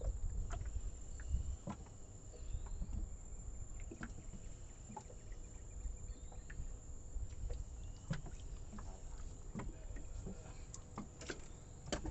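Low rumble of wind and water lapping around a small boat on a river, with scattered light knocks on the boat and a faint steady high-pitched whine.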